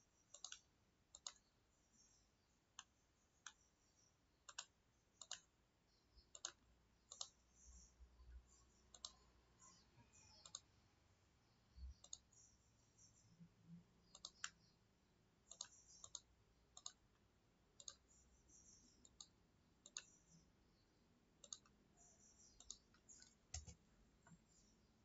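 Computer mouse button clicking faintly and irregularly, about one to two clicks a second.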